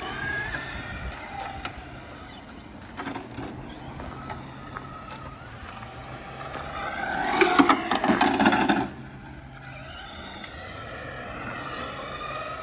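Brushless-motor RC truck (Traxxas Slash with a VXL system) driving, its electric motor whining up and down in pitch as it speeds up and slows, with tyre noise under it. It is loudest for a couple of seconds in the middle.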